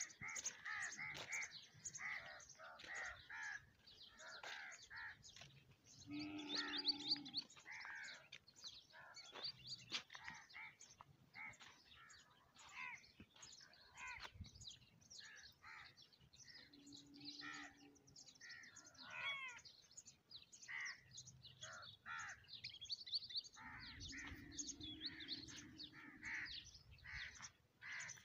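Many birds chirping and calling in quick, overlapping bursts, with crow-like caws among them. Three longer, lower sounds break in, the loudest about seven seconds in, others near the middle and near the end.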